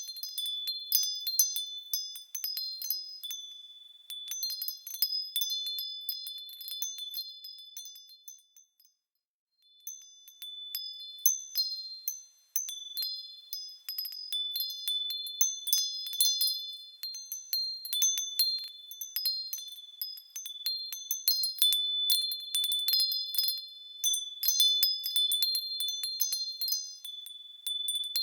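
Wind chimes ringing in a continuous jangle of high, overlapping notes, with a brief silent gap about nine seconds in before the chiming resumes.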